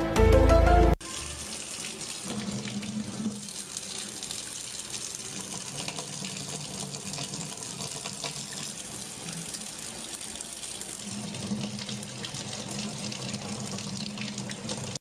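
Background music cuts off about a second in, followed by a steady, even hiss like running water, with a faint low hum under it.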